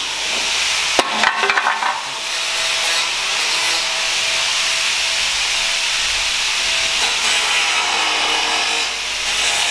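A bodywork power tool running steadily, working on metal panels, with a sharp clack and a short rattle about a second in.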